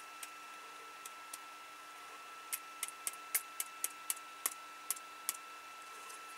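Light plastic clicks and taps from a Sony Bloggie MHS-CM5 camera's zoom lens assembly being tapped and turned over in the fingers: about a dozen sharp, irregular clicks over some three seconds, starting a little past the middle, with a few fainter ones before. The lens element inside has come loose and falls back and forth when the unit is tapped or tilted.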